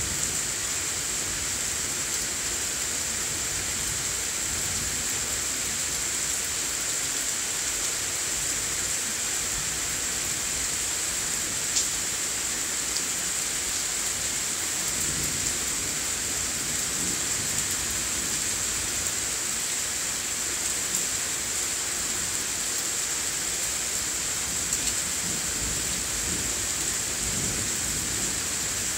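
Heavy shower rain falling steadily in a thunderstorm, an even hiss, with low rumbles of thunder now and then, heaviest near the end. A single sharp tick of a drop striking something comes about twelve seconds in.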